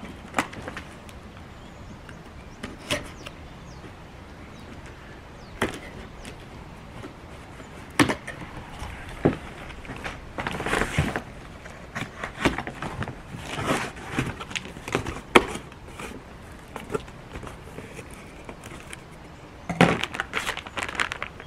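A long cardboard box being opened by hand: scattered knocks and scrapes of the cardboard, with stretches of tearing and rustling, and plastic wrapping rustling near the end as the contents are lifted out.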